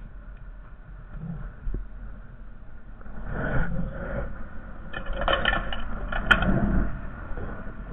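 Honda Foreman 450 ATV's single-cylinder engine running steadily while its front plow blade scrapes and pushes snow in two rough stretches, starting about three seconds in, with a sharp click near the end.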